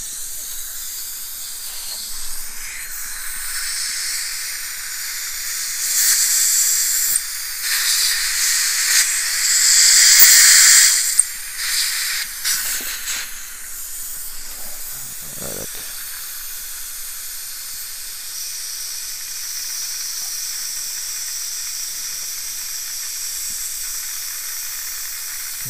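Dental suction hissing steadily in the patient's mouth, with a louder hiss for about five seconds near the middle.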